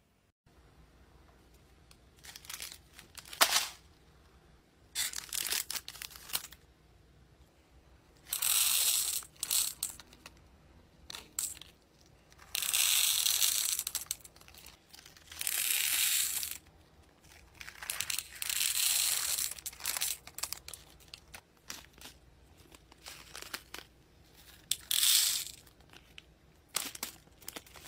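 Small plastic pearl beads poured from thin plastic bags into a clear plastic compartment box. The bags crinkle and the beads rattle into the compartments in several spells of a second or so, with light clicks between.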